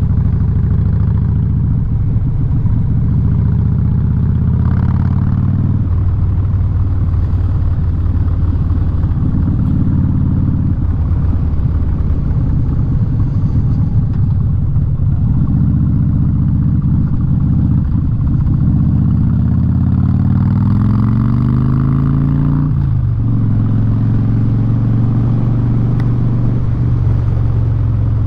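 Harley-Davidson Street Bob V-twin through a loud Vance & Hines aftermarket exhaust, running under way with its pitch stepping between throttle settings and gears; near the end it revs up and drops at a gear change.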